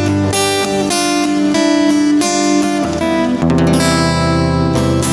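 Acoustic guitar strumming chords in the instrumental close of a country-folk song, with a chord change a little over halfway through.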